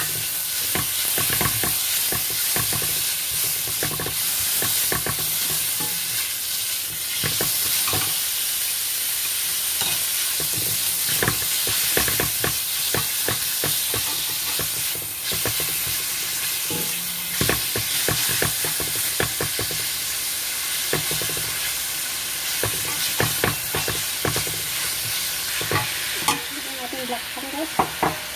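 Sliced pork, ginger and garlic sizzling in hot oil in a nonstick frying pan as they are sautéed, with a nylon spatula scraping and tapping against the pan at irregular intervals while stirring. The sizzle softens near the end.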